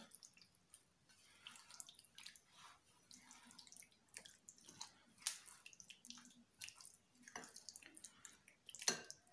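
Faint wet squelching of raw boneless chicken pieces being stirred through a yogurt and tikka masala marinade with a silicone spatula in a glass bowl, with scattered soft clicks of the spatula against the glass.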